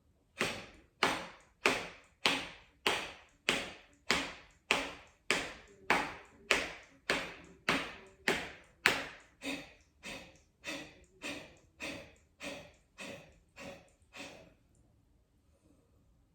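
Kapalbhati (breath of fire) breathing: a person forcing out short, sharp exhales through the nose with the mouth closed, each driven by pulling the belly in, with passive inhales between. About two dozen evenly paced puffs, a little under two a second, stopping shortly before the end.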